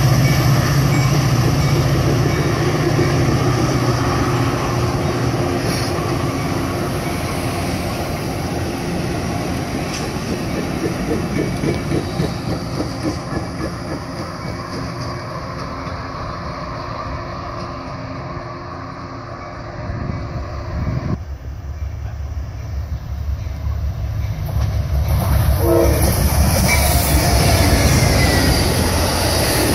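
A Metra bilevel commuter train passing, its diesel locomotive's low engine hum and the rattle of the cars fading as the train pulls away. After a sudden cut about two-thirds of the way through, an Amtrak train led by a GE P42 diesel locomotive comes by, growing louder as the locomotive and Superliner cars pass close, with wheels clattering on the rails.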